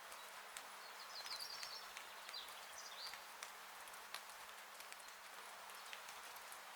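Steady rain falling on a porch roof, a soft even hiss with scattered individual drops ticking. Two brief runs of high chirps come about a second in and again near three seconds.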